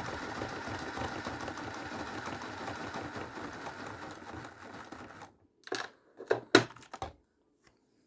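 A machine's steady whirring rattle fades over about five seconds and stops. A few sharp clicks and one louder knock follow.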